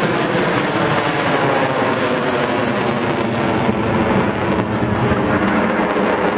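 Eurofighter Typhoon fighter jet passing in a display, its twin jet engines giving a loud, steady roar.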